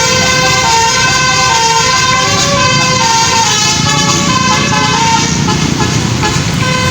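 Telolet basuri horn on a tour bus playing a tune, a run of multi-tone notes that change pitch every few tenths of a second, over a low rumble.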